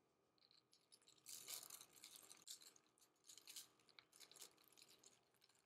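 Near silence, with faint scattered crinkling of parchment paper being handled for a few seconds.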